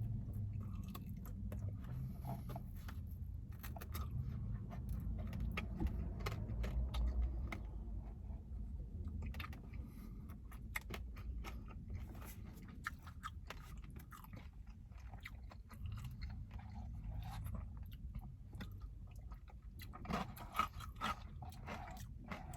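Close-up chewing and biting of sticky dry-fried chicken wings: many small wet clicks and crunches one after another, over a low steady rumble.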